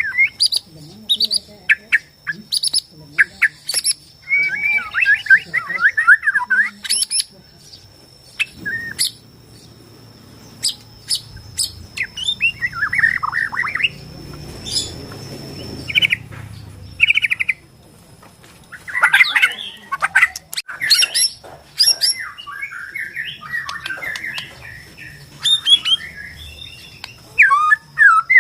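Bornean white-rumped shama (murai batu Borneo) singing: bursts of rapid warbled phrases mixed with sharp clicking and chattering notes, used as a lure song to provoke captive shamas. A faint steady high tone runs underneath.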